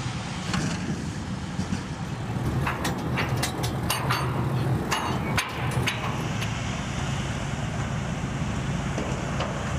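Engine running steadily with a low hum. Between about two and a half and six and a half seconds in, a run of sharp metallic clanks and knocks sounds as soldiers work the joints between bridge bays with bars and tools.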